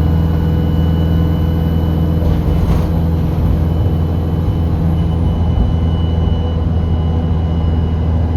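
Bus diesel engine heard on board, running steadily under way with a deep, even hum. A short hiss comes a little over two seconds in.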